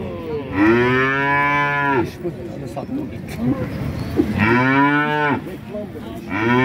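Cattle mooing: two long, loud moos a few seconds apart, and a third beginning near the end.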